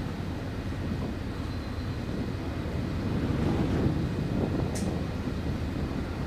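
Steady low rumble of wind buffeting the microphone, with a single short high chirp about five seconds in.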